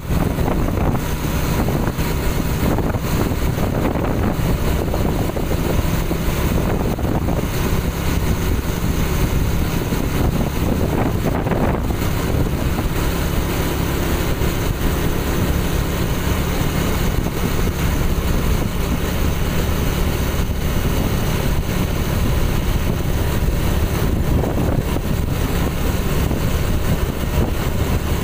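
Motorcycle riding at steady speed: a constant engine hum mixed with road noise and wind buffeting the microphone.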